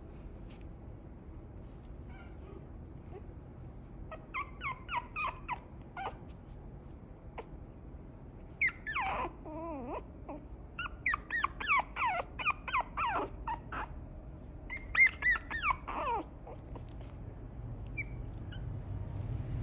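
Maltese × Pekingese mix puppy whimpering: clusters of short, high squeaky cries that slide down in pitch, coming in several bouts over the stretch.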